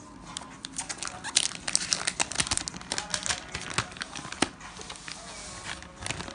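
Packaging being handled and crinkled while a box is unpacked. A dense run of sharp crinkles and clicks starts about a second in and lasts about two seconds, then scattered clicks follow.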